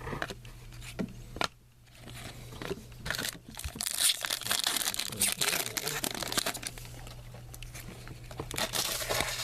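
Foil trading-card pack wrapper being torn open and crinkled by hand, a dense run of crackles and small clicks that builds up about two seconds in and goes on for most of the stretch.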